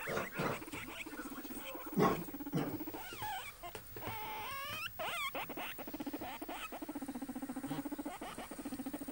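Guinea pig purring: a low, fast-pulsing hum that settles in about halfway through and keeps going as it is stroked, after a few shorter, higher sliding sounds at the start.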